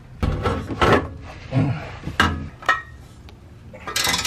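Hand tools and a steel exhaust pipe knocking, scraping and rubbing as a catback exhaust is bolted up under a car, with a short metallic ring about two and a half seconds in.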